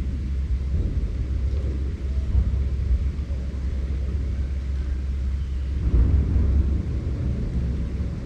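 Strong wind gusting through a forest, a deep rumbling rush with no pitched howl. A stronger gust swells about six seconds in.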